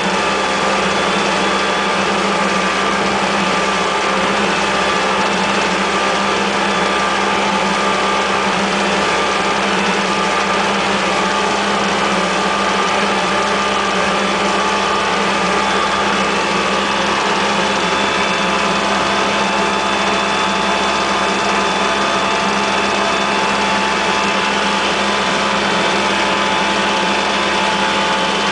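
Boat engine running steadily under way: a constant drone of several steady tones over an even rush of noise, with no change in speed.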